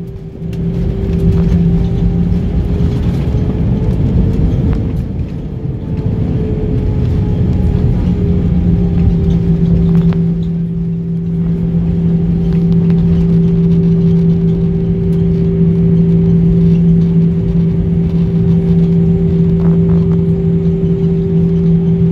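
Airbus A320 jet engines in reverse thrust during the landing rollout, heard inside the cabin: a loud, steady drone with a low rumble beneath. It swells up about a second in and then holds steady.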